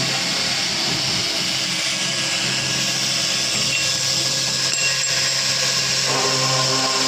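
A circular saw machine cutting through a workpiece. Its steady hum gives way to a noisier cutting sound, then comes back to an even free-running hum about six seconds in, as the blade clears the cut.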